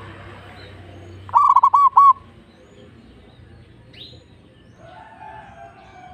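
Zebra dove (perkutut) calling: one quick run of about five clear cooing notes, a little over a second in.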